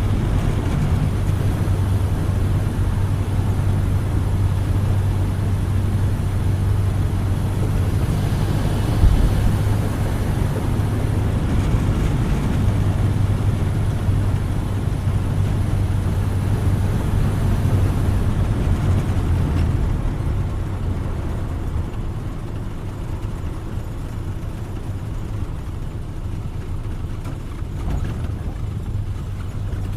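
1931 Ford Model A's four-cylinder engine running steadily as the car drives, with a single thump about nine seconds in. From about twenty seconds in the engine sound eases off and gets quieter.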